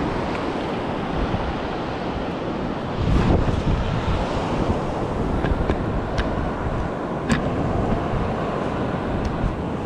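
Surf washing onto a beach, a steady rushing noise, with wind buffeting the microphone and a few brief clicks.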